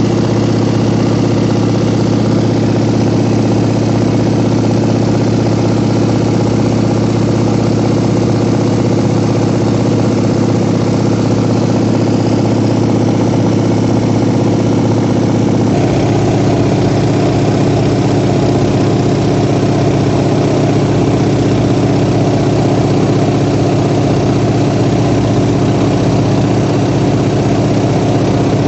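Light aircraft's engine and propeller droning steadily, heard from inside the cabin. The tone shifts slightly about halfway through.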